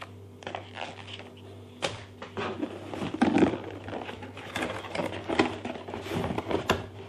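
Cardboard and paper packaging being handled: irregular taps, scrapes and rustles as a manual is set aside and a cardboard insert is lifted out of a box, with the loudest knocks about two and three seconds in. A steady low hum runs underneath.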